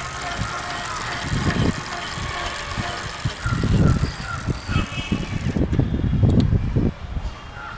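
Electric bicycle's motor driving the rear wheel, which spins freely with the bike up on its stand: a faint steady whine under loud, irregular low rumbles.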